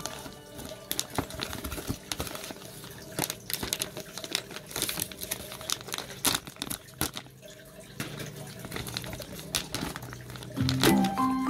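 Clear plastic packaging bag of toy trucks crinkling and rustling in irregular crackles as it is handled. Loud music comes in near the end.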